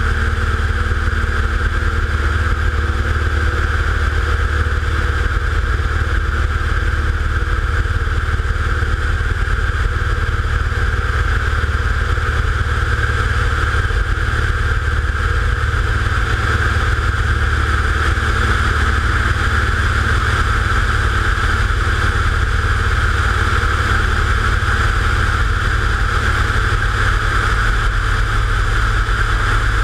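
Steady motor and propeller noise of the aircraft carrying the camera in flight, running at an even pitch with a constant rushing hiss.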